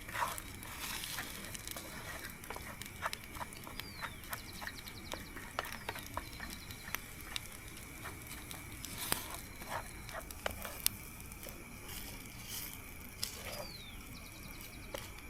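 Outdoor nature ambience: a steady high-pitched drone with scattered sharp drips or ticks. Twice, about four seconds in and again near the end, an animal gives a short downward call followed by a rapid trill.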